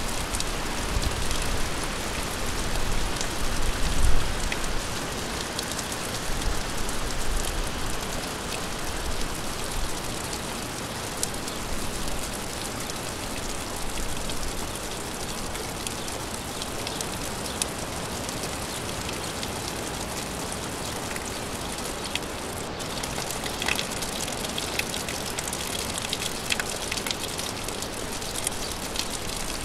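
Gentle rain falling steadily, a constant hiss with scattered individual drops ticking on a surface. A low rumble sits under it for the first several seconds, loudest about four seconds in.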